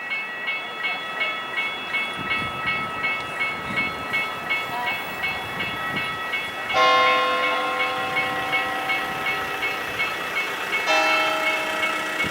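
Level crossing warning bell ringing rapidly, about two strokes a second. About halfway through, the horn of a Rhaetian Railway ABe 8/12 electric train sounds a long blast, and it sounds again near the end.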